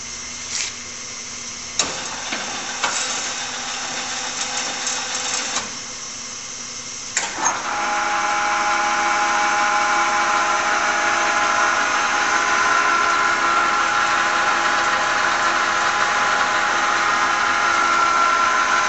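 LeBlond 16" x 80" toolmaker's lathe with its 5 hp drive motor running, and a few clicks as the control levers are worked. About seven seconds in the spindle engages with a clunk, and the 10" three-jaw chuck and headstock run steadily and louder, with a high whine of several tones.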